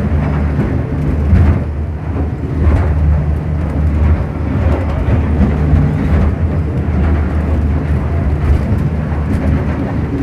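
Boat engine running with a steady low drone, under rushing and splashing water that swells every second or two as the hull rides through rough, strong waves.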